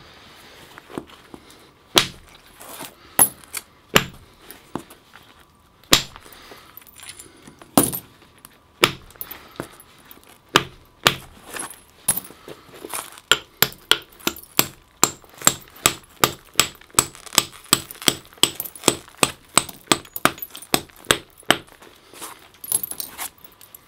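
Antler billet striking the edge of a flint adze blank: sharp knapping clicks, a few spaced strikes at first, then from about halfway a quick run of taps, about three a second, as flakes are taken off to shape a Mesolithic tranchet adze.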